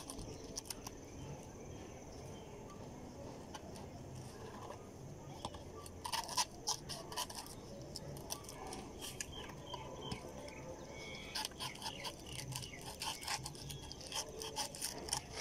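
A small kitchen knife cutting and scraping into the fibrous husk of a green tender coconut, in short crunchy strokes that come in a burst about six seconds in and again through the last six seconds.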